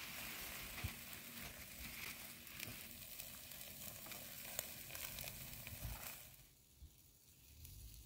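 Shashlik meat sizzling on a grill, a faint steady hiss with small pops, which drops away sharply about six seconds in.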